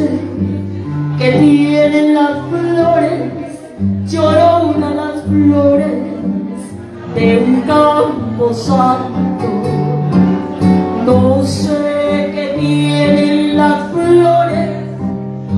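A woman singing a Spanish-language song into a handheld microphone over a karaoke backing track with guitar and bass, in phrases with short pauses between them.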